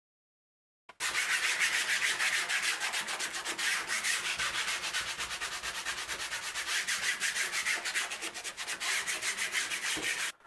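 Wood being sanded by hand: quick back-and-forth rasping strokes, about four a second, starting about a second in and stopping just before the end.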